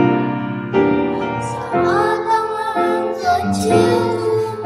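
Piano accompaniment, joined about two seconds in by a quartet of children singing.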